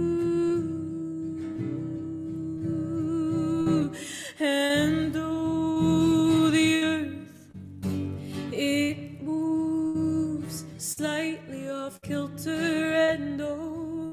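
A woman's voice singing a wordless melody, a long held note and then sliding, wavering notes, over a Taylor acoustic guitar being played.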